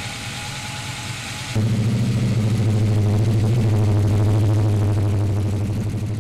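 454 cubic-inch Chevrolet V8 idling steadily with a slightly pulsing beat, freshly fitted with roller rockers and new rocker studs and running after its valve-train rebuild. About a second and a half in it jumps louder as it is heard at the exhaust tailpipes, then drops a little toward the end.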